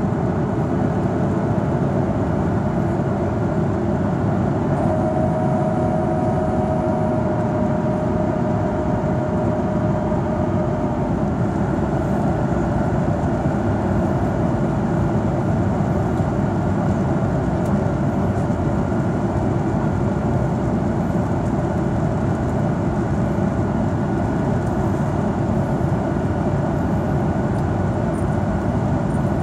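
Steady cabin noise of a Boeing 737-800 in flight, heard from a window seat: the CFM56 engines and the airflow make a constant rumbling hiss. A faint steady whine joins about five seconds in and fades some six seconds later.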